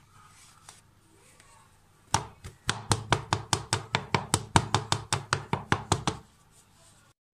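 Rapid, even knocks of a hand patting an upturned bundt cake pan through a towel, about five a second for some four seconds, starting about two seconds in. The tapping loosens the baked cake so it can be turned out of the pan.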